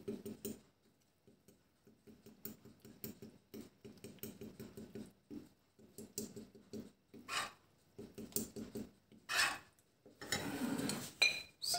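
A metal spoon stirring a runny flour-and-egg dumpling batter in a small ceramic bowl, with quick light scrapes and clinks against the bowl. A few louder clinks come in the second half.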